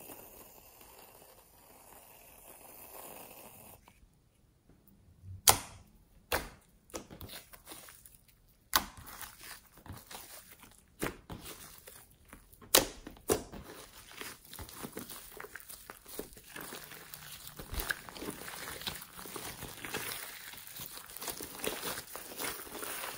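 Hands squishing and stretching fluffy slime: a few sharp pops of trapped air through the middle, then continuous crackly squelching as it is kneaded and pulled.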